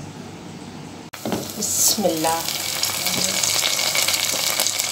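Sliced onions frying in hot oil in a pan, a steady sizzle as they brown. It starts suddenly about a second in, after a quiet opening.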